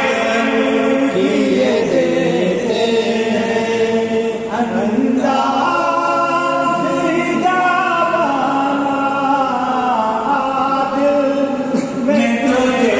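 A naat, an Islamic devotional song, sung without instruments in long held and gliding notes.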